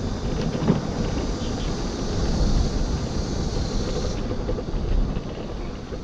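Wind rushing over the microphone of a moving scooter, with road noise; a higher hiss drops away about four seconds in.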